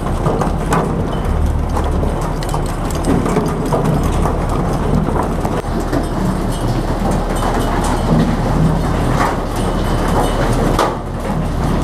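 Automatic mackerel jigging reels hauling in their lines, with frequent irregular clattering knocks as hooks and fish strike the stainless steel chutes, over the steady drone of the fishing boat's Yanmar diesel engine.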